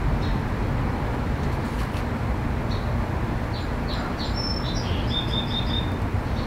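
Steady low background rumble, with a bird chirping a quick run of short high notes in the middle, ending in a brief trill.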